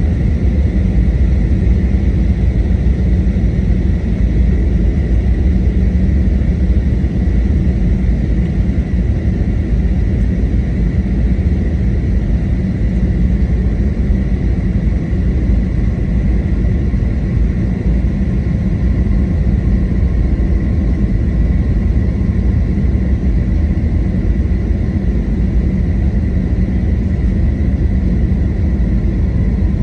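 Airbus A321neo cabin noise: a steady, loud, deep rumble of engines and airflow with a faint high whine held throughout.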